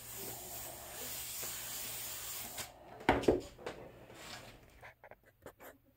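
Airbrush spraying paint with a steady hiss of air that cuts off about two and a half seconds in. Then comes a loud thump, followed by scattered clicks and knocks of the airbrush and tools being handled.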